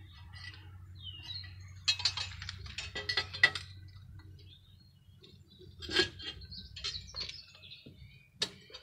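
Steel tongs and a crucible knocking and clinking as the empty crucible is lifted and set back into a propane furnace, in two clusters of sharp clinks about two and six seconds in. A bird chirps briefly near the start.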